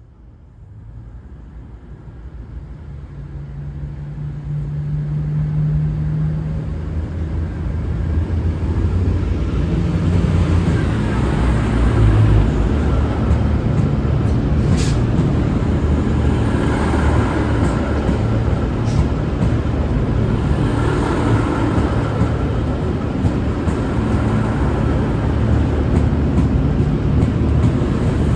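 V/Line VLocity diesel multiple unit (two sets coupled) pulling out under power: diesel engines running with wheel and rail noise, a low, even rumble. It grows louder over the first eight seconds or so as the train draws near, then holds steady as the cars go by.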